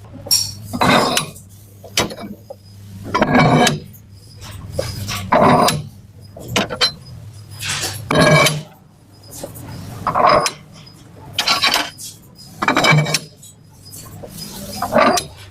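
Metal scraping and clinking in separate strokes, each about half a second long, coming every one to two seconds over a faint steady low hum.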